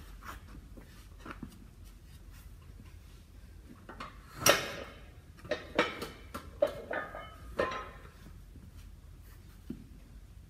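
Scuffs, knocks and rustles of a person getting down onto a rubber gym mat and setting his feet on a weight bench, a few separate sounds with the loudest about four and a half seconds in.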